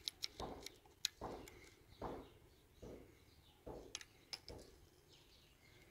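Metallic clicks of a Mendoza .22 rifle's bolt being worked by hand: a quick run of clacks as the bolt closes on a cartridge, the sharpest snap about a second in, then two more clicks near four seconds as the bolt is opened again.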